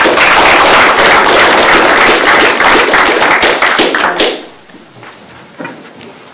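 Audience applauding loudly for about four seconds, then fading out.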